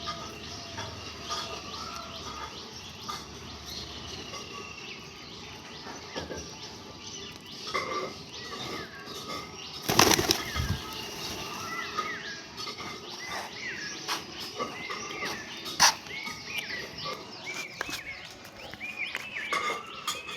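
A group of small birds chirping continuously, with a loud flurry of wing flapping about ten seconds in and a sharp click a few seconds later.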